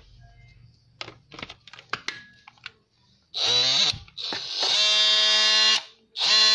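DeWalt DCS356 cordless oscillating multi-tool switched on and run unloaded in bursts. The motor spins up with a rising whine about three seconds in, runs with a steady high buzz, cuts off briefly and starts again near the end. Before that there are a few sharp clicks of the tool being handled.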